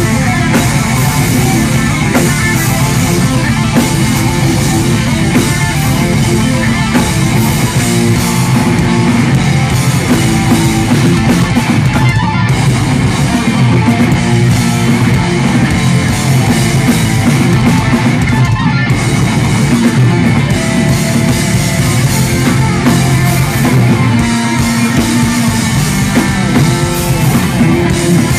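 Progressive metal band playing live and loud: distorted electric guitars, bass guitar and a drum kit in a dense, continuous passage.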